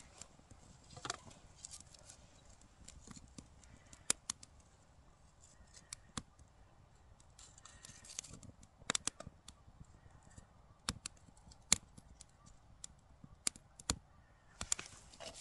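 Scattered sharp snaps and cracks of wood, spaced irregularly, some in quick pairs, over a faint rustling.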